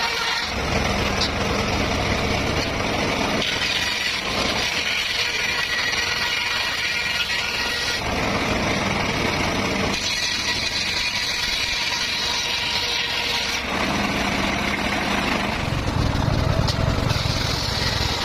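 Circular saw running and cutting petung bamboo: a steady mechanical drone whose tone shifts every few seconds between a deeper, heavier sound and a brighter, higher one as the cuts go through.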